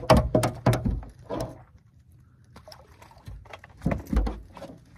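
Handling noise of speckled trout being unhooked on a fishing boat: a flurry of knocks and rattling clicks in the first second and a half, then a few heavy thumps about four seconds in.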